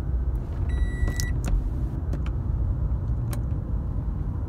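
Toyota RAV4 running while being driven, heard inside the cabin as a steady low road and engine rumble. A single short electronic beep sounds about a second in, and a few light clicks follow. The engine keeps running: the start/stop button press fails to shut it off this time.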